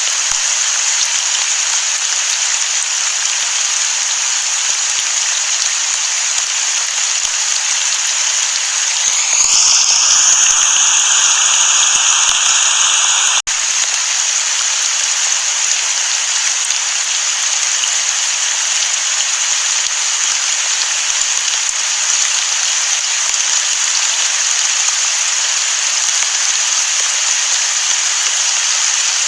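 Steady, heavy rain hiss, as of rain falling on the sea. About nine seconds in, a high tone rises and then holds for about four seconds over a louder patch of rain, cutting off suddenly with a brief dropout.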